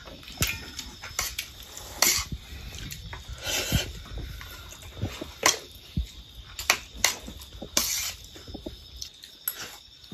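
Eating by hand from steel plates: chewing and lip-smacking mouth sounds with scattered light clicks and scrapes of fingers and rice against the metal plates.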